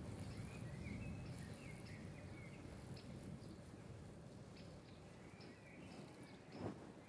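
Songbirds chirping in short, quick gliding phrases over a low rumble that eases off, with one sharp knock near the end.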